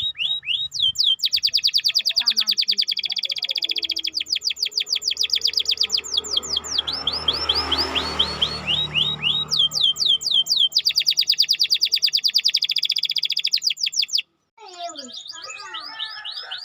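Domestic canary singing: long runs of rapid, evenly repeated high downward-sweeping notes, about ten a second, with short pauses between runs. A rushing swell of noise rises and fades in the middle, and near the end the song cuts off abruptly, replaced by a different, more jumbled chirping.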